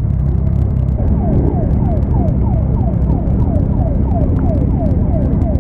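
Police siren sounding a fast, repeating downward sweep, about three a second, starting about a second in, over the steady low rumble of a column of motorcycle engines.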